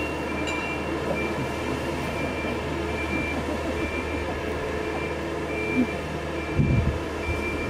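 Mobile boat hoist (travel lift) driving slowly along the quay: its engine runs with a steady low hum while its travel warning beeper sounds a short high beep a little more than once a second.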